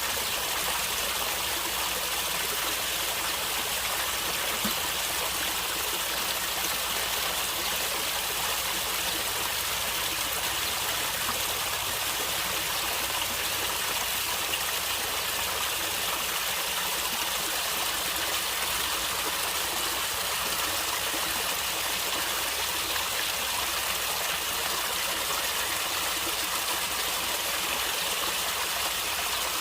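Stream water flowing and gurgling steadily over rocks, an even rush with the most energy in the higher pitches.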